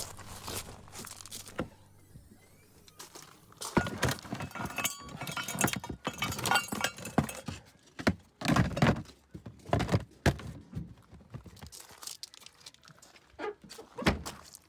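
Gear being handled and packed: a run of knocks and thunks with light metallic clinks, loudest about eight to nine seconds in.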